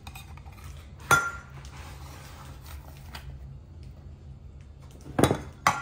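A metal serving utensil clinks sharply against a dish once about a second in, with a short ring, then scrapes softly. Near the end it knocks against the dish several times in quick succession as peach cobbler is dished up.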